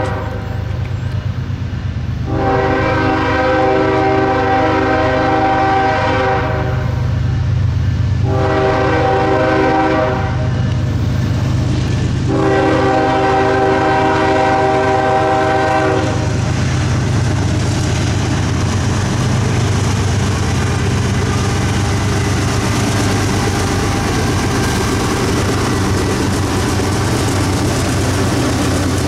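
Freight locomotive's multi-chime air horn sounding for a grade crossing: a long blast, a shorter one and another long blast. Then the diesel locomotives' engines and the steel wheels on the rails grow louder as the train rolls slowly past.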